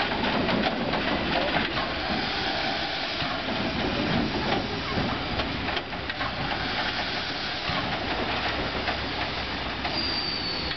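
Ty2 steam locomotive moving slowly while shunting: a steady hiss of steam with scattered knocks and clanks from its running gear and wheels on the rails. A faint high squeal comes in near the end.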